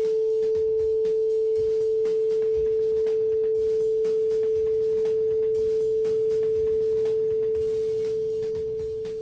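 Nickel-plated steel tuning fork on a fir resonance box, ringing one steady pure tone that fades away over the last couple of seconds.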